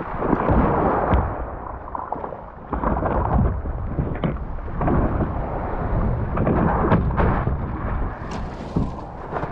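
Sea water splashing and sloshing around the nose of an inflatable paddleboard in choppy little waves, with heavy, irregular low rumbling buffets on the board-mounted action camera's microphone. A short knock comes near the end as the board comes in to the pebble beach.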